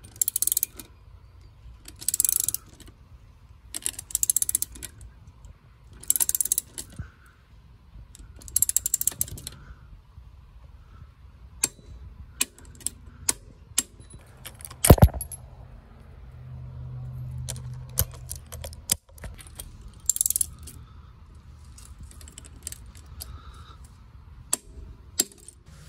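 Ratcheting torque wrench clicking in short strokes, about one burst every two seconds, as the rear axle nut of a Honda CB1100 is tightened toward its 69 lb-ft specification. A single loud, sharp click comes about fifteen seconds in, with more scattered ratchet clicks later.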